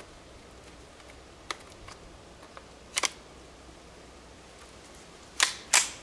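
Ruger Charger .22 LR pistol being handled and made ready: a light click, a double click about halfway through, then two louder sharp metallic clacks about a third of a second apart near the end.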